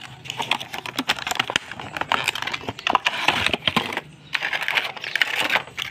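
Plastic blister packaging of a frog lure crinkling and crackling in the hands as it is pulled open, with dense irregular crackles and a short pause about two thirds of the way through.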